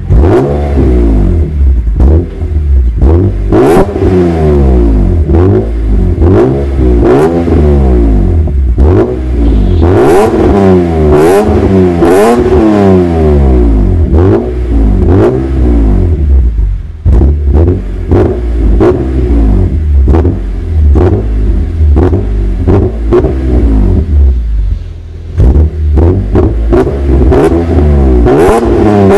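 BMW M3 exhaust with a Gruppe M aftermarket silencer, the engine revved over and over while stationary: one quick blip after another, each rising and falling in pitch.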